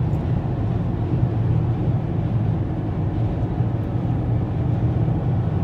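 Steady road and engine noise inside a moving car's cabin at motorway speed, a continuous low rumble.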